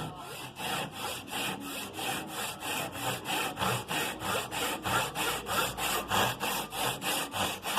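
Back saw cutting wood by hand, quick even strokes at about four a second, ripping down into the end of a clamped board to form the cheek of a half-lap joint.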